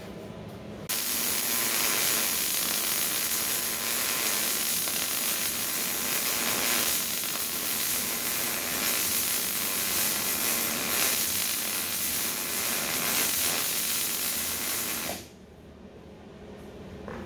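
Electric welding arc running one continuous bead on heavy steel plate, an even crackling hiss. It starts about a second in and cuts off suddenly near the end as the arc is broken.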